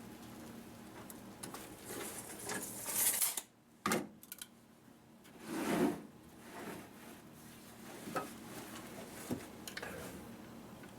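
Wooden boards being handled: scattered knocks, clatter and scraping of wood, broken by a sudden brief drop almost to silence about three and a half seconds in.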